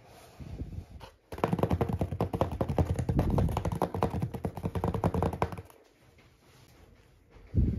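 Fingertips tapping rapidly on the lid of a corrugated cardboard mailer box for about four seconds, then one soft thump near the end.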